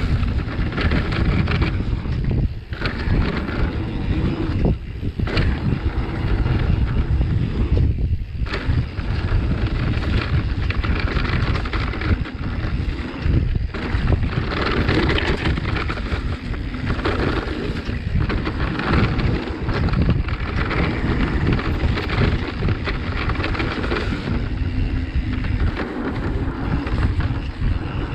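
Mountain bike riding fast down a dirt trail: wind buffets the camera microphone in a steady low rumble, while the tyres roll over the dirt and the bike rattles and knocks over bumps.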